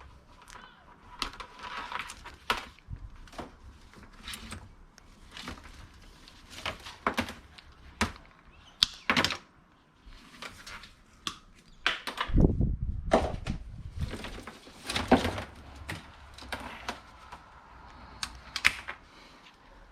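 Electrical cords and their plastic plugs being handled and sorted: irregular clacks, clicks and light scraping. A heavier thump with a rustle comes about twelve seconds in.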